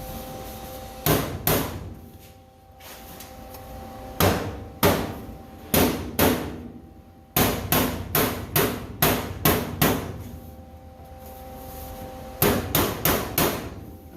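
Hammer striking sheet-steel floor pan metal with a ringing clang, in several bursts of quick blows, the longest a run of about eight, as the panel is knocked into fit. A faint steady hum sits underneath.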